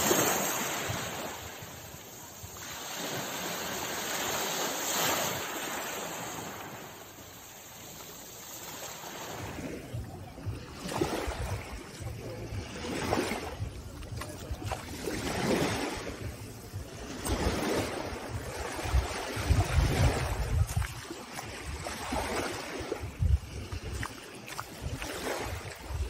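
Small sea waves breaking and washing up a pebbly shore, swelling and ebbing. About nine seconds in it changes to shallow surf swishing around feet wading along the water's edge, in repeating swells every second or two, with wind buffeting the microphone.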